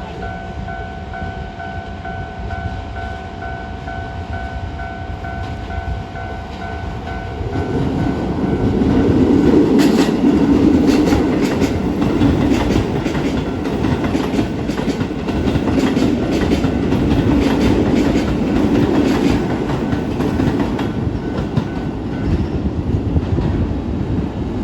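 Japanese level-crossing warning bell ringing steadily, then a Keisei 3000-series electric commuter train passes over the crossing: its rumble builds about a third of the way in, with wheels clacking over the rail joints for several seconds before it eases off. The bell keeps ringing until near the end.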